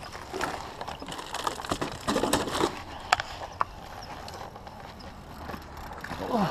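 Handling of a fishing landing net and footsteps on rock and dry sticks: scattered clicks, knocks and rustles, irregular, loudest a couple of seconds in.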